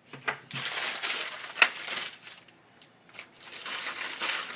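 Plastic packaging crinkling as the cables are handled and unpacked, in two rustling stretches with a sharp click about a second and a half in.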